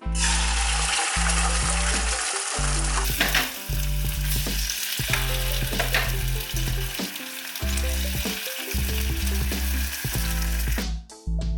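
Food sizzling in a hot frying pan, starting at once and stopping near the end, with a couple of sharp utensil clicks about three and six seconds in. Background music with a steady bass line runs underneath.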